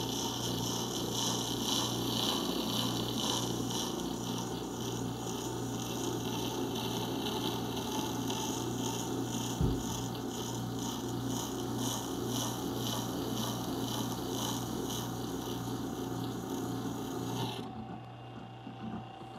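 A chisel bevel grinding against the turning stone of a Rikon 8-inch wet sharpener: a steady rasping scrape over the low hum of the sharpener's motor. The scrape stops suddenly about a second and a half before the end, as the chisel is lifted off, while the hum goes on; there is one brief knock about halfway through.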